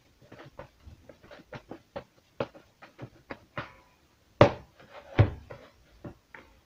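Hands kneading soft bread dough in a plastic bowl: a run of irregular soft slaps and thuds, about two a second, with two louder thumps about four and five seconds in.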